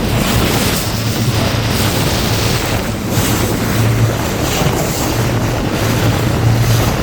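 Honda 60 hp four-stroke outboard running steadily while the rigid inflatable boat is under way through chop, with wind buffeting the microphone and water rushing and slapping against the hull.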